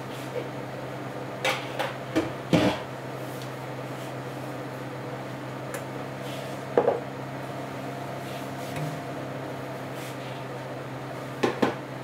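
Bowls and dishes clinking and knocking as they are handled on a kitchen counter, in a few short clusters: several about two seconds in, one near the middle and two near the end, over a steady low hum.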